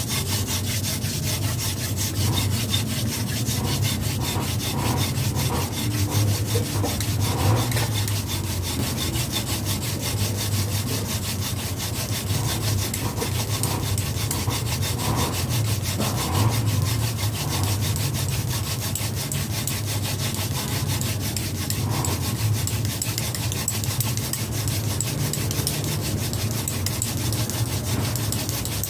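Wooden hand-drill spindle spun between the palms and pressed into a wooden fireboard, a steady dry rasping of wood rubbing on wood. The friction is grinding out hot wood dust toward a glowing ember.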